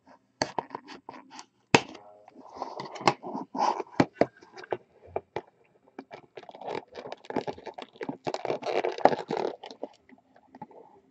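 Hands opening a small cardboard trading-card box: irregular scratching, scraping and crinkling with many sharp clicks as the box is picked at and its lid worked loose.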